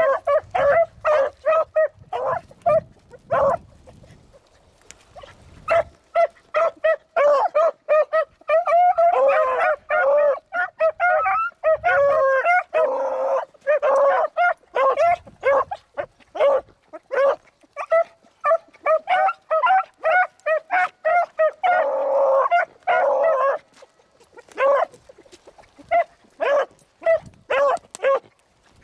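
A pack of beagles giving tongue in quick, short yelping barks, several dogs at once, as they work a rabbit's scent trail. The barking comes thickest in three spells, about a third of the way in, around the middle, and again about three quarters through.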